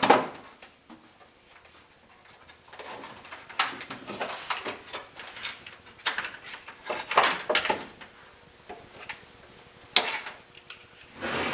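Scattered rustling, scraping and light clicking as a wire and hand tools are handled inside a bare steel car body, with a sharp click about ten seconds in.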